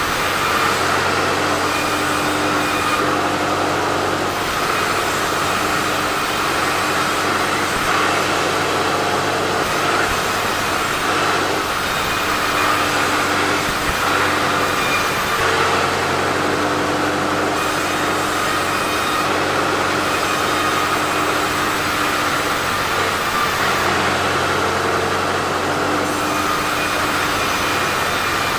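Sawmill saw running steadily while cutting teak logs, its hum shifting a few times.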